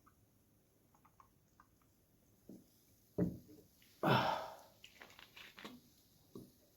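Close-miked eating of chicken noodles: wet mouth clicks and chewing, with a louder noisy burst of mouth sound about four seconds in and more smacking clicks after it.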